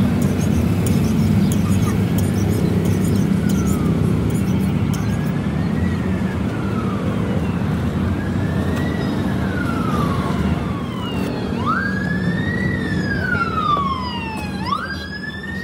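A wailing siren over a steady low rumble. The wail starts faint about five seconds in, rising quickly and falling slowly in cycles of about three seconds. It grows louder and comes quicker toward the end.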